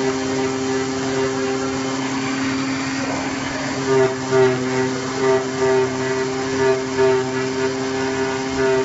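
CNC flat-bed plotter cutting 40 mm honeycomb cardboard: a steady machine hum with held tones. From about four seconds in, a whine swells and fades about twice a second as the cutting head moves along its path.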